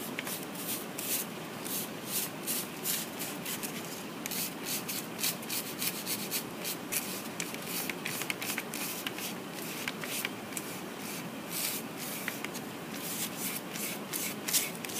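Wet paintbrush bristles scrubbing over marker lines on paper, in short back-and-forth strokes a few times a second, wetting the marker ink into paint.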